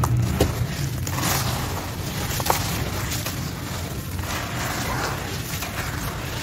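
Hands crumbling dry sand-cement chunks into a plastic tub: gritty crunching and the hiss of grit and powder pouring down, handful after handful, with a couple of sharp clicks as hard bits strike. A low rumble runs underneath.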